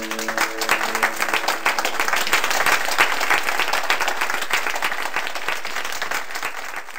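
Applause: many hands clapping in a dense, steady patter that tapers off near the end, with the last held notes of music dying away at the start.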